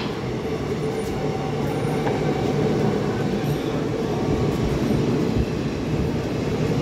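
Passenger coaches of an Indian Railways express train rolling past: a steady rumble of wheels on the rails.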